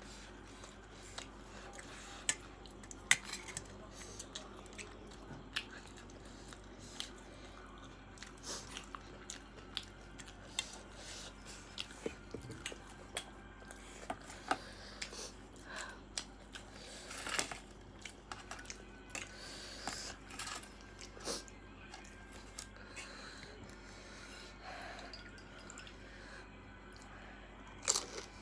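Close-up eating sounds: chewing, with scattered soft clicks and small crunches from the mouth and food, irregular throughout, over a steady low background hum.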